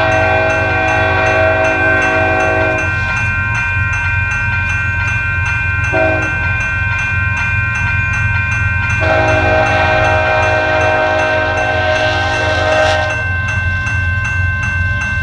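BNSF diesel freight locomotives' horn sounding the grade-crossing signal: a long blast that ends about three seconds in, a short one about six seconds in, then a long one of about four seconds. Under it the crossing bell rings steadily and the locomotives rumble past.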